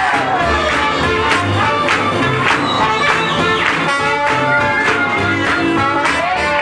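A swing jazz band playing live, horns carrying the tune over a steady beat and a moving bass line.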